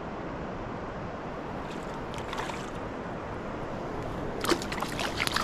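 Steady wash of moving water, then from about four seconds in a run of sharp, irregular splashes and drips as a hooked rainbow trout thrashes at the surface while being brought in.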